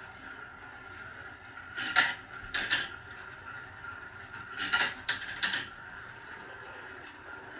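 A marble rolling through a homemade marble run, clattering and clicking against the track in short bursts about two, three and five seconds in.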